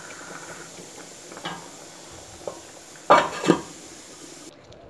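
Stainless steel lid being set on a stainless steel pot: two quick metal clanks about three seconds in, after a few lighter taps.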